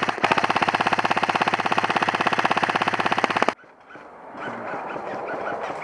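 Airsoft rifle firing one long full-auto burst, a rapid even stream of shots that cuts off suddenly about three and a half seconds in. A fainter, hazier background follows.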